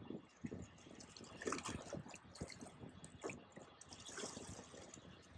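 Faint water lapping and dripping, with small irregular splashes.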